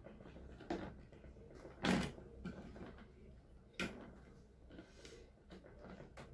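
A handful of sharp clicks and knocks as hands work the metal retention lever and load plate of a motherboard's CPU socket. The loudest comes about two seconds in, with another near four seconds.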